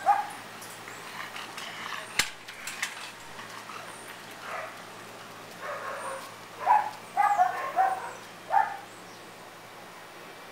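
Dog barking in short, separate barks, with a quick run of barks in the second half. A single sharp click about two seconds in.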